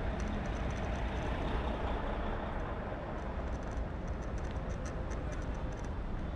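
Steady street noise heard while riding a scooter through city traffic: a continuous rumble of road and traffic, heaviest in the low end, with a faint high ticking that comes and goes.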